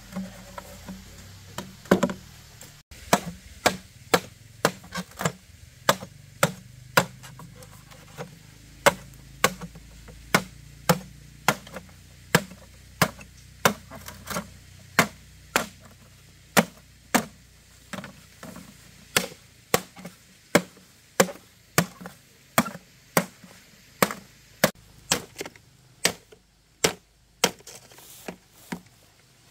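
A blade chopping wood: steady, sharp strikes at about two a second.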